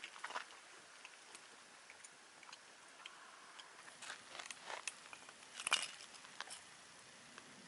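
Wood campfire crackling: irregular small pops and snaps over a soft hiss, with a louder cluster of snaps about six seconds in.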